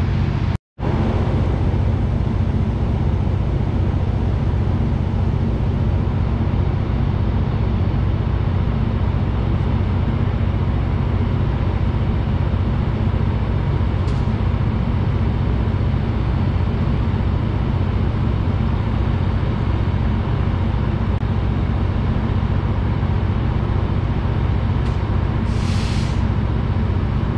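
Passenger train's diesel locomotive running steadily at a standstill, a deep, even engine hum with no change in pitch. It briefly cuts out about a second in, and a short hiss comes near the end.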